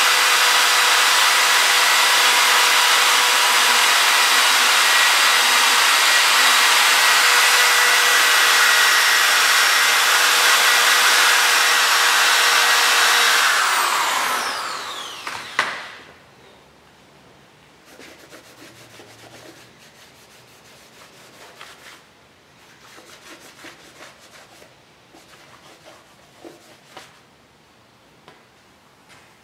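Corded handheld rotary tool with a small abrasive pad, running at high speed against the cast-iron deck of a Chrysler 440 block: a steady high whine with a scouring hiss, cleaning the deck surface for the heads. About halfway through it is switched off and winds down with a falling whine. Faint rag wiping follows.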